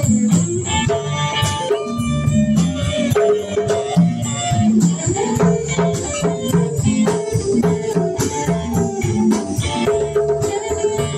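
Live band music: electric guitar, congas and drum kit playing together, with a steady beat of sharp percussion ticks.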